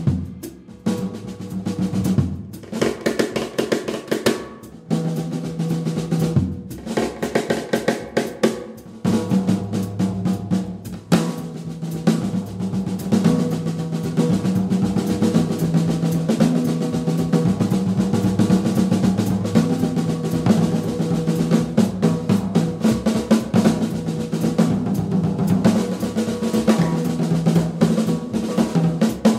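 Jazz drum kit played busily on snare, cymbals and bass drum, with an upright double bass playing a low line beneath. The playing grows fuller and denser about nine seconds in.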